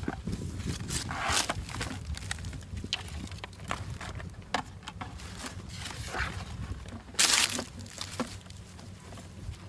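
Irregular knocks and rustles of a plastic bucket and PVC pipe fish traps being handled and lifted, over a low outdoor rumble, with one louder burst of noise about seven seconds in.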